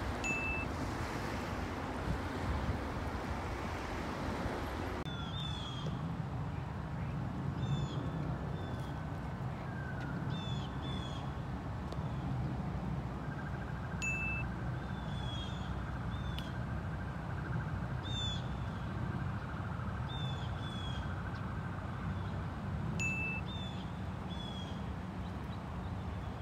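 Wind buffeting the microphone with water lapping on a sandy shore for about the first five seconds. Then common grackles calling from a treetop: short, high calls repeated every second or two over a steady low rumble.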